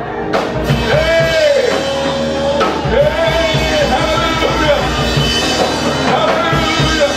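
Live praise band playing a rock-style song with a drum kit. A lead melody swoops up and down in repeated arches over the beat.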